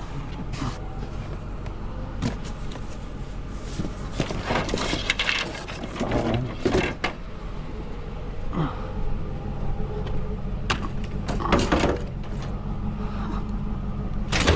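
Scrap metal and parts being handled: scattered knocks and clanks with a few rattling, clattering stretches, over a steady low hum.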